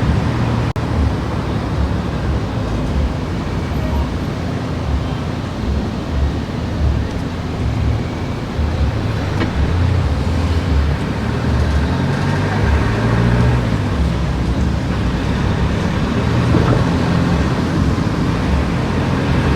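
Road noise of a car being driven: a steady low rumble of engine, tyres and wind that swells and eases without a break.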